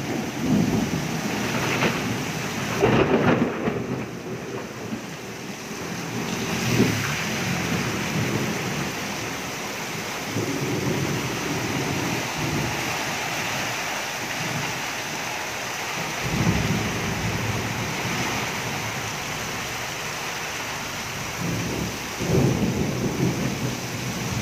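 Heavy tropical downpour: a steady hiss of rain with rainwater running along a flooded pavement edge. Low rumbles swell up and fade every few seconds.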